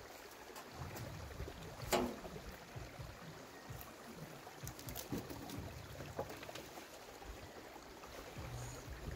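Faint low rumble of a loaded wheelbarrow being pushed over rough grassy ground and brought up to a raised bed, with a sharp knock about two seconds in and a few lighter clicks later.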